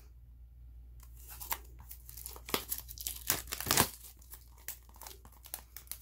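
Clear plastic shrink wrap being torn and peeled off a CD album, crinkling and crackling in irregular rips from about a second in, the loudest a little before four seconds.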